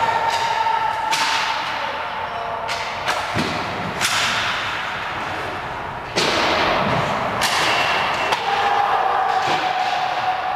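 Ice hockey sticks cracking against pucks as skaters shoot on a goaltender, about five sharp cracks, each echoing through the rink.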